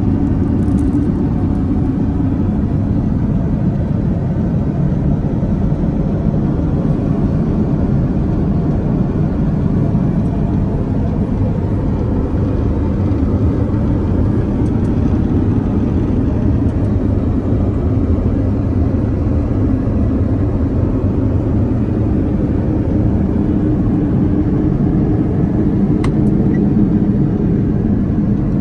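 Airbus A330neo in flight: the steady low cabin roar of airflow and engines, heard inside the aircraft. There is a single faint click near the end.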